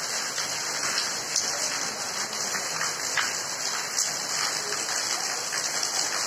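Heavy rain pouring steadily: a dense, even hiss with a few sharper drop ticks.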